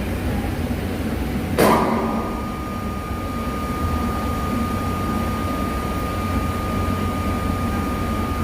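TIG welding arc on stainless steel: a sharp crackle about a second and a half in as the arc is struck with high-frequency start, then the arc runs with a steady high whine. A low steady hum from the welding machine and workshop runs underneath.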